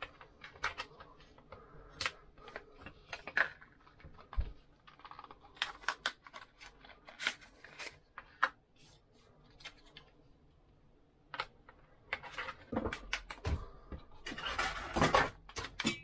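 Scattered small plastic clicks and taps of Framework laptop expansion cards being handled, popped out of their trays and fitted into the laptop's slots. A dull knock comes about four seconds in, and a denser run of rustling and knocks fills the last few seconds.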